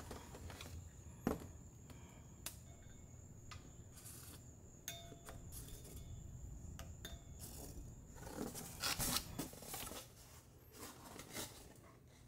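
Faint, scattered clicks and clinks of small metal parts being handled, with a faint steady high whine through the first two-thirds.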